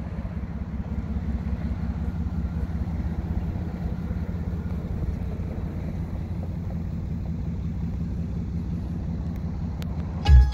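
Car engine idling steadily: an even, low rumble.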